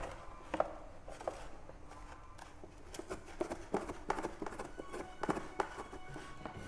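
Irregular light knocks and taps, several a second at times, of things being handled on a hard surface, under faint background music.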